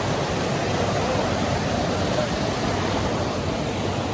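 Steady rush of a river's falls and cascades, an even wash of noise with no breaks.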